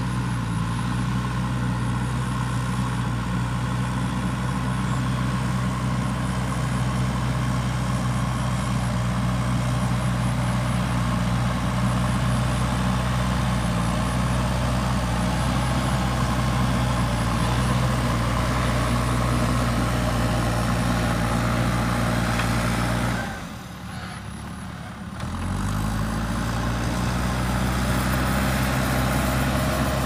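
JCB 3DX backhoe loader's diesel engine running steadily under load while it pushes soil with its front bucket. Near the end the sound drops away for about two seconds, then the engine comes back with its pitch rising as it revs up.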